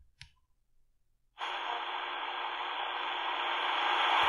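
The C.Crane CC Skywave 2's shortwave scan runs with the speaker muted, near silent. About a second and a half in, it stops on a signal at 6000 kHz, which comes in abruptly as a steady hiss of static that slowly grows louder.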